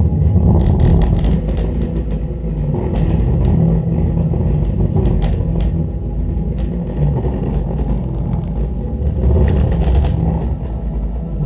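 Bass-heavy music played loud through a Silicon US-10 10-inch subwoofer driven by a 500-watt amplifier: deep, sustained bass notes with little treble.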